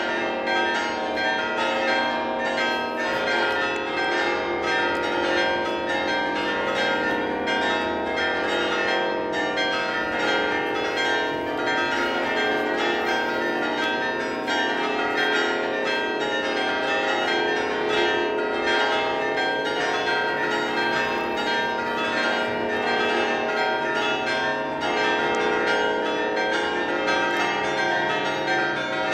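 Bells in a Romanesque church tower ringing a festive peal for a feast-day mass: many bells of different pitches struck in quick, overlapping succession, their tones sustaining and blending into one continuous sound.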